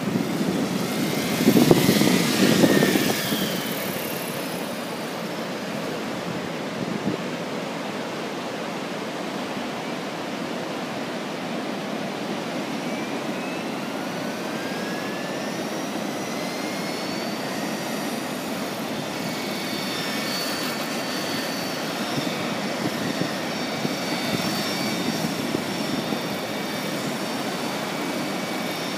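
Radio-controlled model helicopter, loud as it passes close in the first few seconds, then a steady hum of rotor and wind. About halfway through, a whine rises in pitch, and high steady whining tones run through the second half as it flies again.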